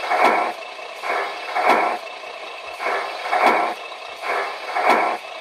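Gear changes on a 1/14 RC truck setup with a GT Power sound and light system: the shift servo is stepped through first, second and third from the transmitter. Each shift is a pair of short bursts, repeating about every second and a half over a steady background sound.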